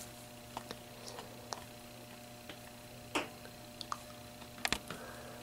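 Quiet room tone with a faint steady hum, broken by scattered small clicks and taps. Two of them, about three seconds in and near the end, are louder.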